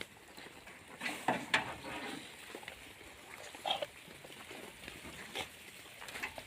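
Goats making a few short calls, about a second in and again near four seconds, among scattered light knocks and scuffs.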